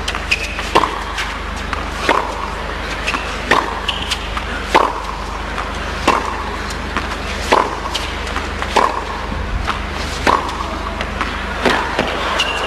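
Tennis ball struck by rackets in a long baseline rally: sharp hits about every second and a quarter, alternating between the near and far player. A few brief high squeaks sit among the hits, over a steady low hum.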